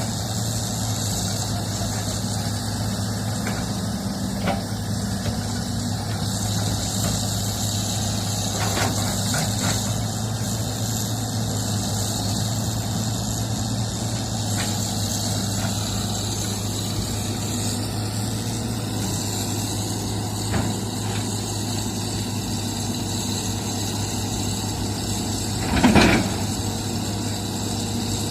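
Diesel engine of heavy construction machinery running steadily at a low, even pitch, with a brief louder noise near the end.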